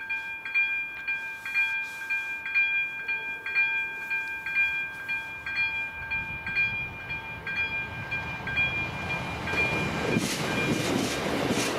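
Level-crossing warning bell ringing in regular dings, joined by an approaching train whose rumble grows from about six seconds in and is loud near the end as it reaches the crossing.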